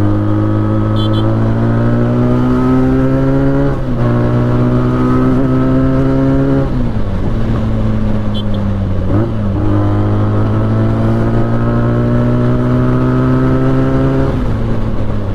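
Benelli 300's parallel-twin engine under way on a ride, its pitch climbing steadily as it pulls, dropping at about four and seven seconds in, then climbing again and falling away near the end.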